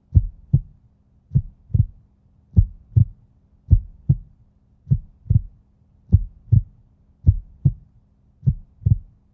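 Heartbeat sound effect: deep double thumps in a steady lub-dub pattern, about one beat pair a second, eight pairs in all, over a faint low hum.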